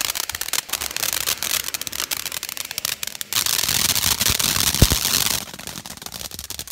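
Ground firework fountains spraying sparks, with dense crackling and sharp pops throughout. A louder steady hissing rush comes in about three and a half seconds in and stops about two seconds later, with a low thump in the middle of it.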